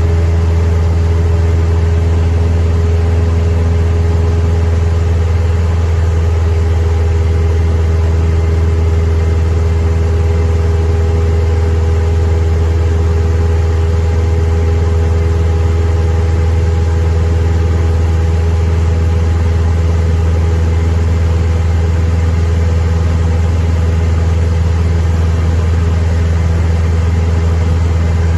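Cessna 172M's four-cylinder Lycoming engine and propeller droning steadily in flight, heard from inside the cabin. It is a loud, even low hum with no change in pitch.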